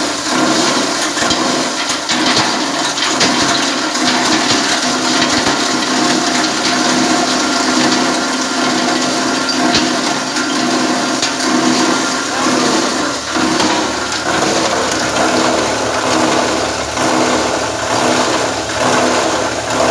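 Plastic bottle grinder running, its blades chopping PET bottles fed in by hand: a steady machine hum under a continuous crackling, clattering rush of plastic being shredded into flakes.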